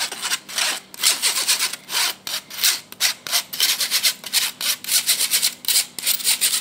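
Metal fork scraping flour through a wire-mesh sieve, in quick repeated strokes several times a second, as the dry biscuit mix is sifted.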